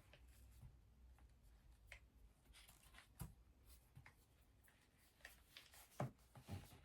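Near silence, with a few faint clicks and taps from the headphones and their carry case being handled.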